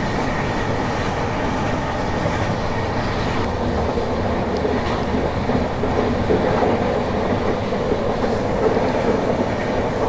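Passenger train running at speed on a curve, heard from the moving coach: the steady noise of wheels on the rails.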